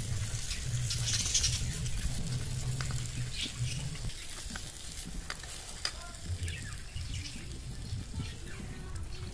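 Tomato and onion masala sizzling in a miniature clay pot, with a steel spoon stirring and scraping against the pot during the first few seconds.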